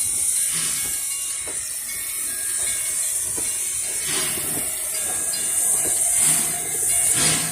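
Puffing Billy narrow-gauge steam locomotive hissing steam steadily, with faint scattered knocks and clanks underneath.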